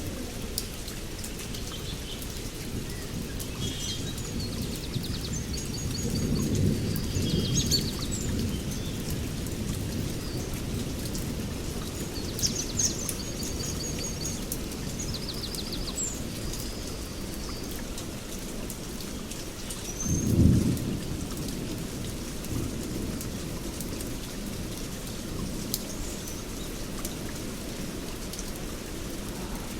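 Heavy rain falling steadily on forest foliage, with low rolls of thunder about six to eight seconds in and a louder, short thunder clap about twenty seconds in. Birds give fast trills and short whistles several times in the first half.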